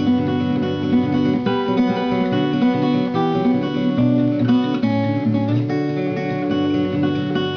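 Background music featuring strummed acoustic guitar.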